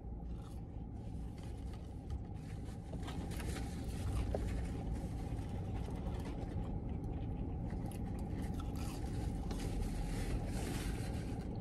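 Someone chewing French fries, with faint scattered crunches and rustles of a paper fry carton, over a steady low rumble inside a car cabin.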